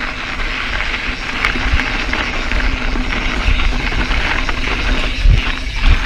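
A Scott mountain bike riding over a gravel forest trail: steady tyre crunch and rattle, with a deep wind rumble on the handlebar-mounted action camera's microphone. Two heavier thumps from bumps come near the end.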